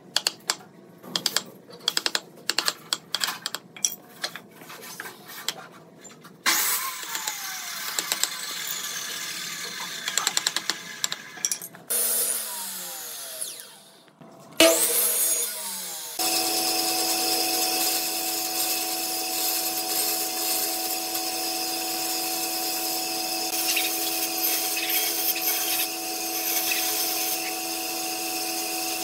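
Mallet striking a chisel in a quick, irregular series of sharp knocks as joints are chopped in timber. Then a miter saw runs through a cut and spins down with a falling whine. From about halfway on, a band saw runs with a steady hum as it cuts wood.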